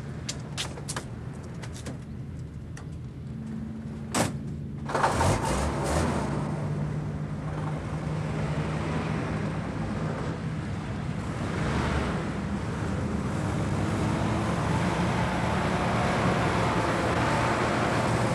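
A few light clicks, then a truck cab door slams shut about four seconds in. A Büssing 8000 truck's diesel engine then starts and runs steadily as the truck pulls away, getting louder toward the end.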